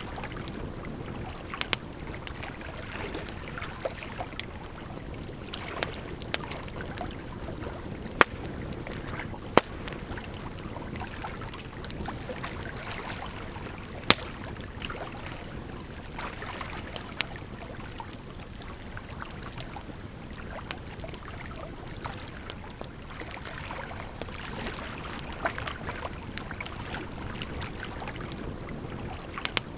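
Firewood burning with crackles and a few sharp pops, over a steady sound of running water.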